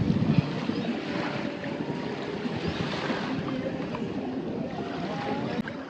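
Outdoor sea noise: water and small waves with wind buffeting the microphone, a few louder gusts at the start.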